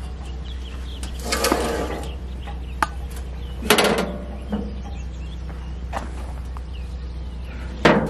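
Steel blade-wheel covers of a Wood-Mizer LT15 band sawmill being swung shut and latched: a rattling clank about a second in, a short click, a loud bang with a little ringing about halfway, and another bang at the end. A steady low hum lies under them.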